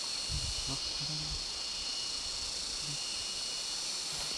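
Insects droning steadily in a high, even tone, with a fainter higher-pitched chirring that comes and goes. A few brief, faint murmured words can be heard in the first half.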